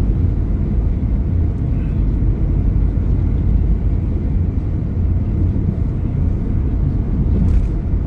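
Steady low rumble of a car being driven, engine and tyre road noise heard from inside the cabin.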